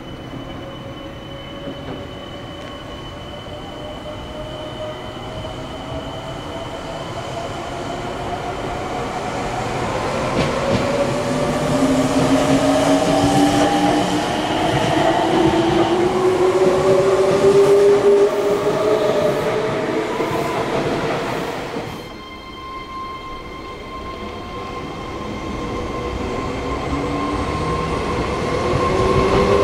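Meitetsu 3500-series electric trains' traction motors whining, with several tones climbing steadily in pitch and growing louder before the sound drops away abruptly past the middle. Near the end another rising motor whine begins as a train pulls away from the platform.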